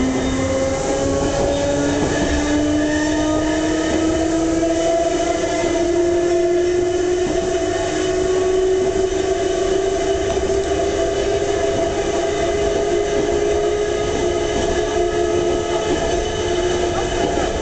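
Nose-suspended (tsurikake) traction motors and gearing of Ohmi Railway Moha 225, a Moha 220-series electric railcar, whining under power, heard from inside the car. The whine rises steadily in pitch over the first several seconds as the train accelerates, then holds nearly level at speed.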